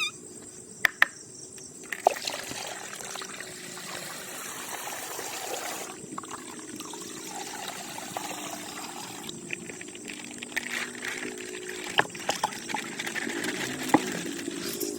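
Coloured water trickling and pouring out of a burst plastic ice bag, with scattered sharp clicks from the plastic being handled.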